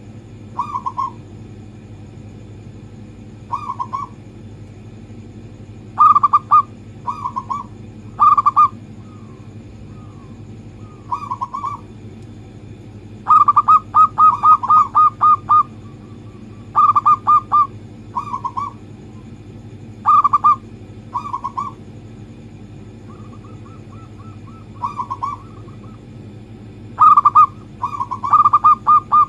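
Zebra dove cooing in short phrases of quick coos, repeated every second or two, with one longer run of rapid coos about 13 seconds in. A steady low hum runs underneath.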